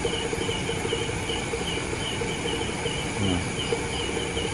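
Night chorus of crickets and other insects: a steady high trill with a chirp repeating about three times a second.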